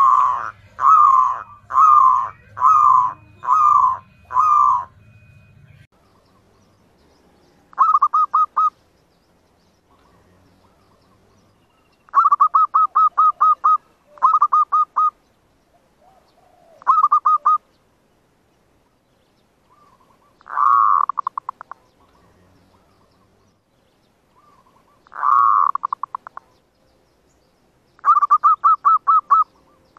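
Zebra dove (perkutut) calling: six evenly spaced coos at the start, then every few seconds a short burst of fast, rattling coos. It is the dove lure call used to draw wild zebra doves to a trap.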